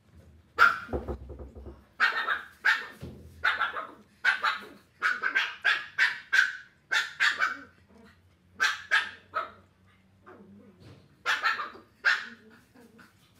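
A dog barking repeatedly in quick runs of short, sharp barks, with a pause about three-quarters through before a last few.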